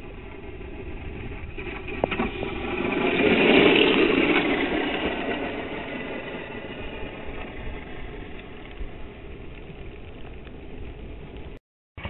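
RC rally car's motor running as the car drives past. It grows louder to a peak about three and a half seconds in, then slowly fades as the car moves away.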